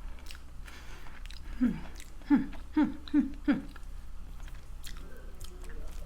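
Close-miked chewing of Wingstop chicken wings, with wet mouth clicks. Five short falling-pitch hums from the eater come in quick succession in the middle.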